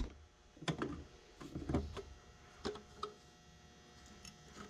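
A few light, scattered knocks and clicks of handling work, spread irregularly over a faint steady background hum.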